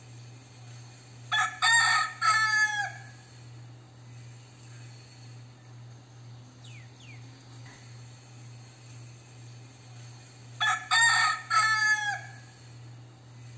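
Crossbred gamecock crowing twice, about nine seconds apart. Each crow is a few short clipped notes and then a longer last note that falls away, over a steady low hum.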